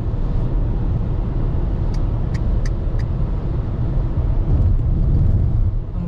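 Car driving at highway speed, heard from inside the cabin: a steady low rumble of road and engine noise, with a few faint clicks about two to three seconds in.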